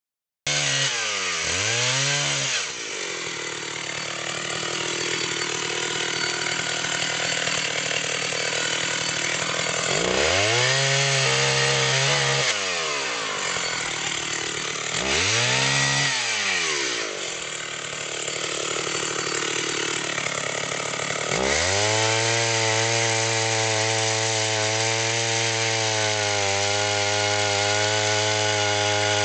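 Chainsaw cutting a fallen oak log. The engine speed swings down and back up several times, then holds steady and high for the last eight seconds or so.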